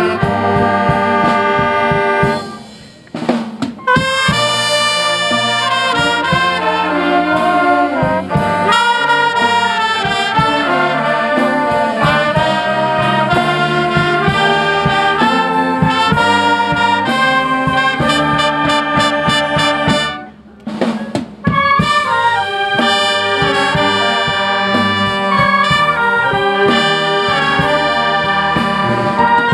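Wind band playing: saxophones, trombones, trumpets and sousaphone over a steady drum beat. The music drops out briefly twice, about three seconds in and about twenty-one seconds in, and the full band comes straight back in.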